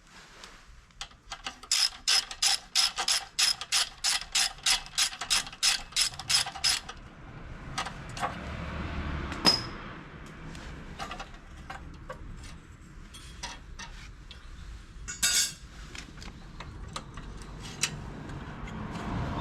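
Ratchet wrench clicking in an even run of about three to four clicks a second for some five seconds, then stopping. Scattered clicks and knocks of tools and metal parts follow.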